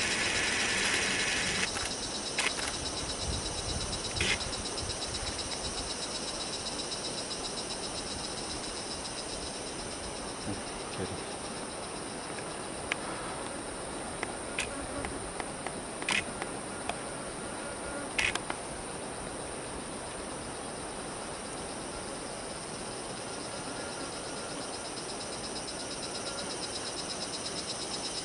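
Steady chorus of insects, a high-pitched, finely pulsing buzz. A few brief sharp sounds cut through it, twice early and twice past the middle.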